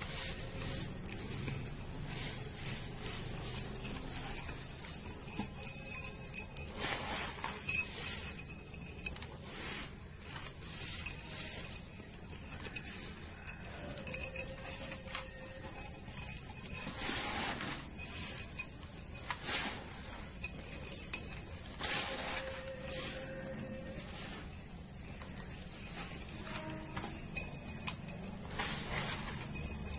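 Dry, dusty sand crumbled and sifted through the fingers, grains trickling and pattering onto a heap of sand: a gritty hiss that swells and fades in irregular waves, with a few louder handfuls.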